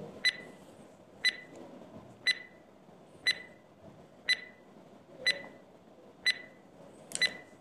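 Countdown stopwatch tick sound effect, one short click with a brief high ring about once a second. Near the end two ticks come close together.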